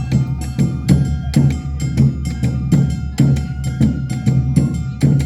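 Awa odori festival music: drums and a hand gong striking a steady beat of about two strokes a second, over held melodic tones.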